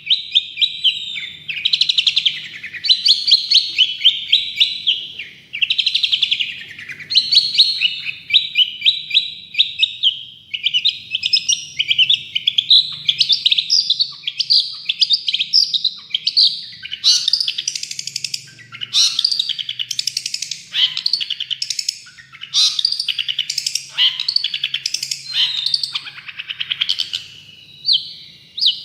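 Long-tailed shrike (cendet/pentet) singing continuously. Fast rattling trills and chattering notes come in short phrases about every one to two seconds, becoming more varied, with higher and sharper notes, in the second half.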